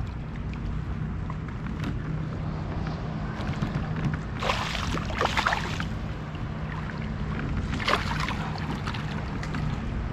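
A hooked bass splashing at the surface beside the boat as it is fought in, in two spells of sharp splashes about four and a half and eight seconds in, over a steady low hum.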